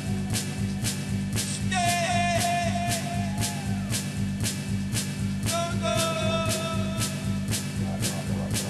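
Live electronic band music from samplers and keyboards: a steady beat of about two to three strokes a second over a sustained low drone, with a high gliding melodic phrase coming in twice.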